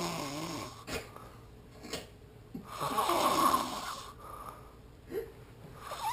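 A sleeping person snoring, one long snore about every three seconds; the loudest comes in the middle, with short clicks between the snores.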